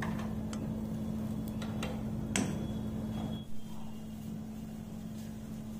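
A few light clicks and knocks of steel seekh skewers against the metal charcoal grill box as they are basted and turned, the loudest about two and a half seconds in with a short metallic ring. A steady low hum runs underneath.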